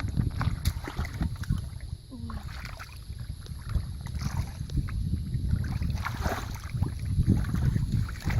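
Wind buffeting the microphone as a gusty low rumble, with scattered small clicks and knocks.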